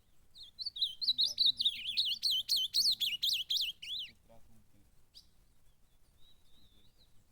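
Ultramarine grosbeak (azulão) singing: a fast run of warbling, up-and-down notes for about four seconds, then one short faint note a couple of seconds later.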